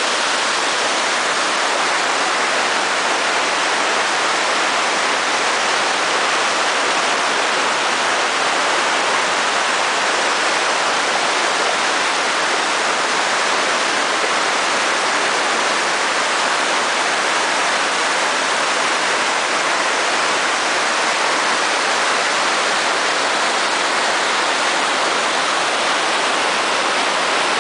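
The Rhine Falls' whitewater pouring over and around rocks close by: a loud, steady rush of falling water with little deep rumble.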